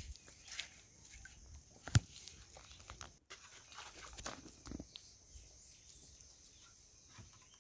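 Quiet clinks and knocks of a wooden spoon and metal bowls at a cooking fire, with one sharp knock about two seconds in.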